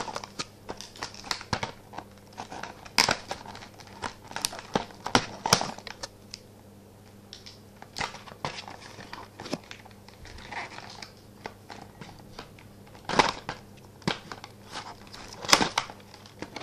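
Scissors cutting through cardboard toy packaging, with the card crinkling and crackling as it is handled: irregular sharp snips and crackles, a few of them louder.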